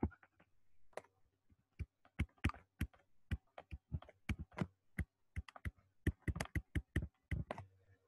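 Stylus tapping and clicking against a pen tablet during handwriting: a run of sharp, irregular clicks, several a second.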